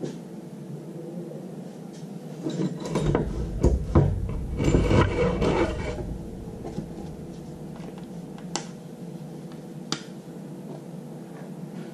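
Handling noise: rubbing and scraping from about two and a half to six seconds in, over a steady low hum, then two sharp clicks.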